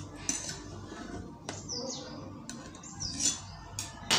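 Light clinks and taps of a knife and hands against a steel plate, the sharpest clink near the end, with a bird chirping twice in the background.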